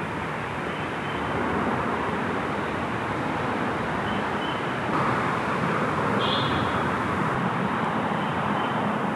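Steady roar of distant road traffic, with a few faint high chirps.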